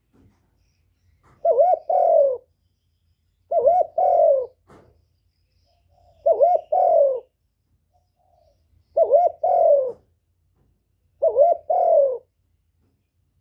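Spotted dove cooing: five phrases of its song, each a short hooked note run into a longer falling coo, repeated every two to three seconds.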